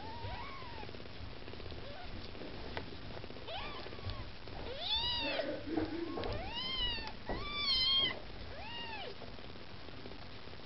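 Newborn Maine Coon kittens mewing as they jostle to nurse: a run of about half a dozen short, high mews that each rise and fall, loudest and closest together from about five to eight seconds in.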